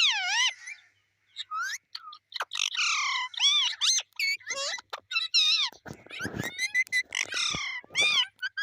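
Pet parrot squawking and chattering: a quick run of short, high, sliding calls and chirps, with a loud call at the start and a harsher squawk about six seconds in.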